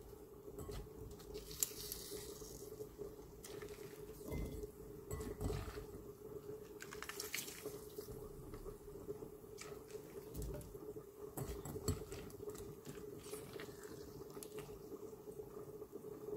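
Salted diced onion squeezed by hand over a glass bowl: soft wet squelching, with brine dripping and trickling back into the bowl and scattered light clicks. A steady faint hum runs underneath.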